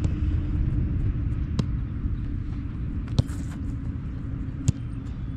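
Four sharp thuds of a soccer ball being struck, about a second and a half apart, the last two loudest, over a steady low rumble.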